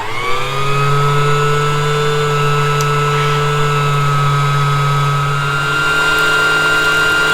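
Janome My Style 5027 sewing machine's motor running to wind the bobbin: it spins up with a rising pitch over the first second, then runs at a steady speed.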